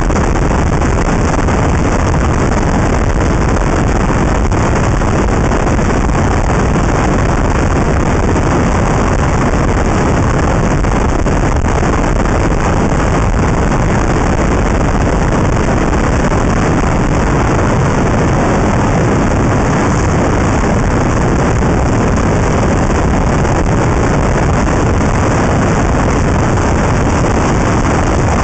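Steady, loud rush of wind and road noise on the microphone of a camera clamped to the outside of a moving car.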